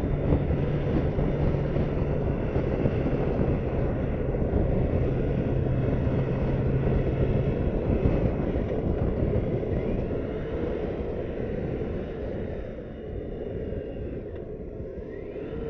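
Wind rush and the running engine of a BMW K1600's inline-six motorcycle on the move. A steady low engine hum under the wind stops about halfway through, and the sound eases off over the last few seconds.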